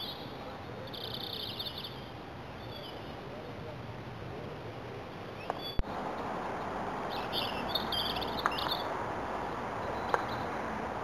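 A songbird sings short trilled phrases twice, about a second in and again about seven seconds in, over steady outdoor background noise. There are a few sharp clicks, the loudest about halfway through.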